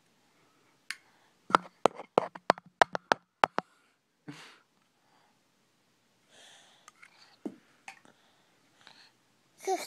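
A quick run of about a dozen sharp clicks and taps right at a phone's microphone in under three seconds, as a child's hand handles the phone. A soft breathy puff and quiet breath or whisper sounds follow.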